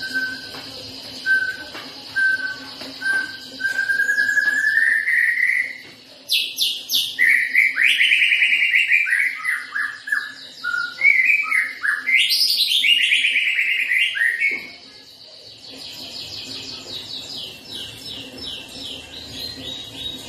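White-rumped shama singing after its bath: a few short spaced whistles, then a rising note, then loud, varied phrases of falling whistled notes and fast trills. After about 15 s the song gives way to softer, rapid chattering notes.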